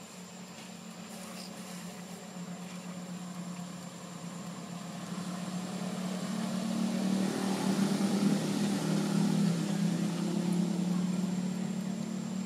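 A motor vehicle's engine humming steadily, growing louder over several seconds and starting to fade near the end, as if it passes close by.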